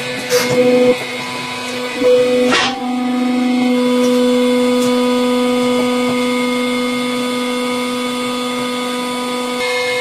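Hydraulic press running with a steady motor hum, with two short bursts of cracking, under a second in and about two and a half seconds in, as the press crushes something.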